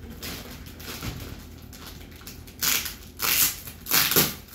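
Packaging being handled and opened: faint crackling at first, then three loud crinkling crunches in quick succession in the second half.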